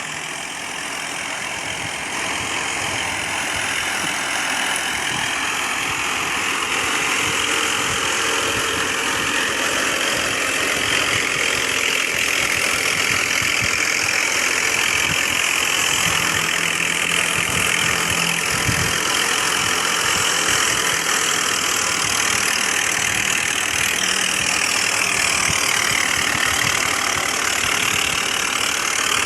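Massey Ferguson 240 tractor's three-cylinder diesel engine driving a wheat thresher, the engine and the thresher's machinery running together in a loud, steady din that grows a little louder over the first few seconds.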